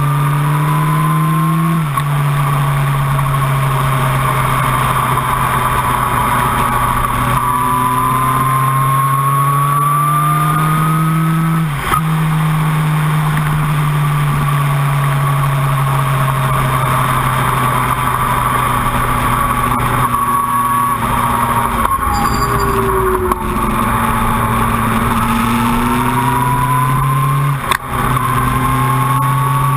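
Sport motorcycle engine at high road speed. Its pitch climbs steadily as the bike accelerates, then drops sharply as it shifts gear, about two seconds in and again about twelve seconds in. Wind rushes past the bike-mounted microphone underneath.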